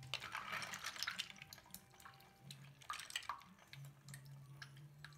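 Hands sloshing in a basin of soapy water, with small splashes and drips as plastic toy figurines are lifted out.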